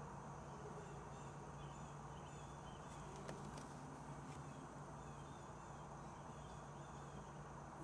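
Quiet room tone: a steady low hum under a faint hiss, with faint high chirps and a few soft clicks a little past three seconds in.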